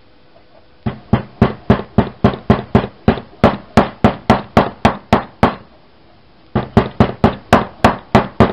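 Wooden mallet tapping a new seal into its seat in a Champion 2-inch trash pump's seal housing, to seat it. Quick, even knocks about four a second, a pause of about a second in the middle, then another run of knocks.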